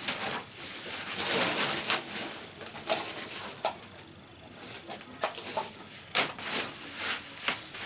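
Clicks, knocks and rustling as an LG washing machine is handled and switched on and its control-panel buttons are pressed, with a couple of short blips about three seconds in.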